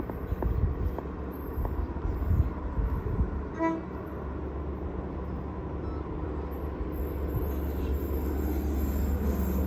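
XPT diesel passenger train approaching, a low rumble that grows steadily louder over the last few seconds. A single brief toot is heard about three and a half seconds in.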